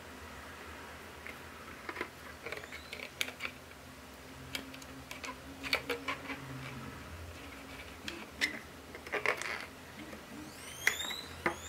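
Hands handling a rubber balloon stretched over a small tin can: scattered small clicks, taps and rubbing, with a few short rising squeaks of the rubber near the end.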